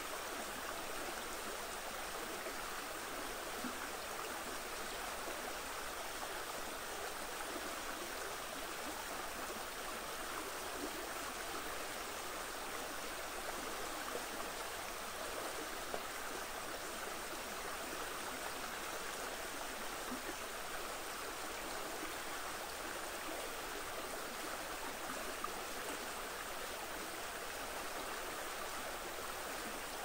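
A river flowing with a steady, even rush of water.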